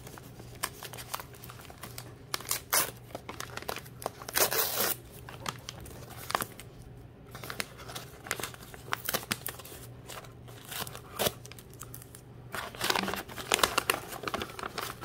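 Brown kraft packing paper being torn open and crumpled by hand, peeling back tape, in irregular bursts that grow busier near the end.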